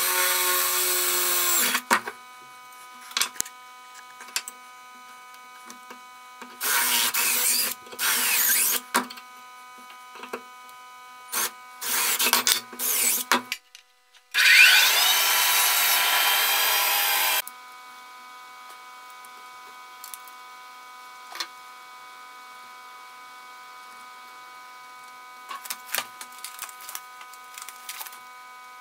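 Band saw cutting small wooden blocks: several short cuts, then a longer cut of about three seconds. Between the cuts and after them there is a steady hum with scattered light clicks and taps.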